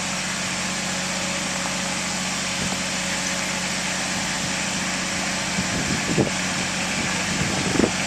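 Compact tractor engine running steadily at low speed as the tractor drives slowly toward the listener, with two brief low thumps in the last two seconds.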